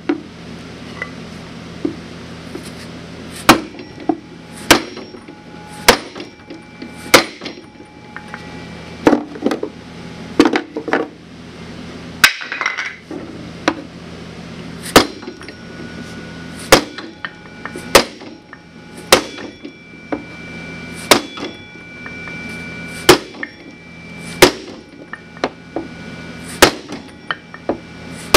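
Heavy hammer blows on a wooden block braced against a 2005 Ski-Doo Summit Adrenaline snowmobile's bent metal chassis, straightening crash damage. Loud strikes come roughly once a second with a few short pauses, and the metal rings briefly after each blow.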